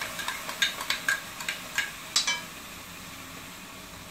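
A spoon scraping and tapping ground coconut paste out of a small bowl into a kadai of frying shallots and spices. It makes a quick run of clicks and clinks for about two seconds, one ringing clink near the end of it, over a faint sizzle from the pan. Then only the faint sizzle.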